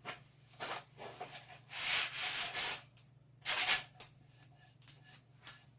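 A few irregular rubbing, scraping strokes on wood, the longest and loudest lasting about a second near the middle, a shorter one about a second later.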